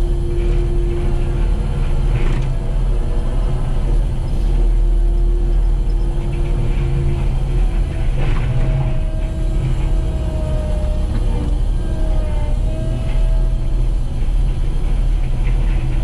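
Kubota SVL95 compact track loader's diesel engine working hard while its hydraulically driven CID disc mulcher grinds brush and small trees, heard from inside the cab. There is a steady heavy rumble with a whine that wavers in pitch, and a few sharp cracks as wood hits the spinning disc teeth.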